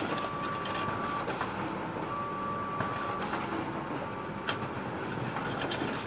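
HP Laser MFP 138fnw laser multifunction printer running a copy job, its automatic document feeder pulling the sheet through. There is a steady mechanical whir, a thin whine that sounds twice for about a second each, and a sharp click about four and a half seconds in.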